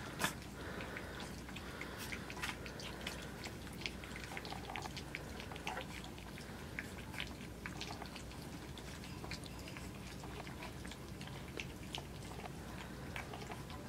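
A litter of three-week-old Australian Shepherd puppies lapping and smacking at runny puppy mush in a shallow metal pan: soft, irregular wet clicks, several a second.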